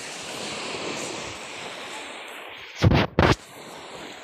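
Steady hiss of surf and breeze at the shore, broken about three seconds in by two loud, low thumps in quick succession where wind or handling hits the microphone.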